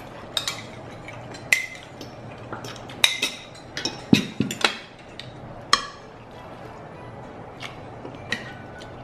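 Forks and spoons clinking and scraping against black iron sizzling plates and ceramic bowls during a meal, in scattered sharp clinks, some of them ringing. A plate is set down on the table with a knock about four seconds in.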